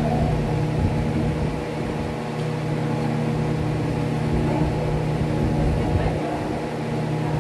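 A vehicle engine running at a steady idle, an even hum that holds the same pitch throughout.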